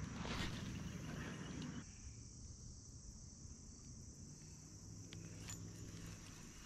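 Insects in summer streamside vegetation keep up a steady high-pitched trill, with a louder rushing noise over it for the first two seconds and a few faint clicks.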